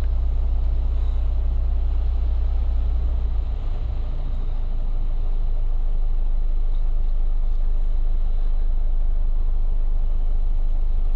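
Steady low rumble of a vehicle engine running, easing slightly about three and a half seconds in.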